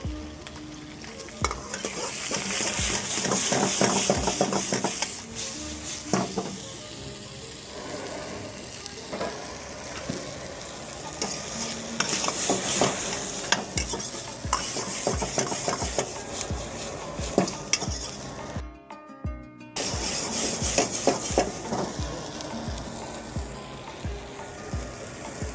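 Vegetables stir-frying in an iron wok over a gas flame: a sizzle that swells in waves as the wok is tossed, with a steel ladle repeatedly clanking and scraping against the wok. The sound cuts out for about a second roughly three-quarters of the way through.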